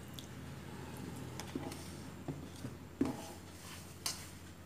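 Quiet handling of a hand mixing flour with grated beetroot and carrot in a steel plate as water is added, with a few light taps and knocks.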